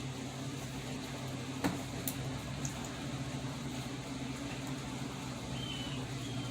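Room tone: a steady low hum with a faint hiss, and one sharp click about a second and a half in.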